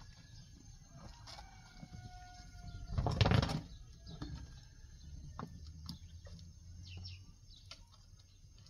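Small wood fire burning under a flatbread griddle, with scattered light crackles and clicks. About three seconds in there is a brief loud rustling flurry.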